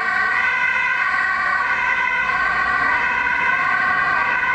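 Ambulance siren sounding steadily as the ambulance drives off on an emergency run, its pitch wavering slowly up and down.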